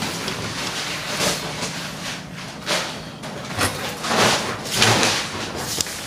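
An interior door opened by its round metal knob, followed by irregular bumps and rustling as someone moves through the doorway into the room.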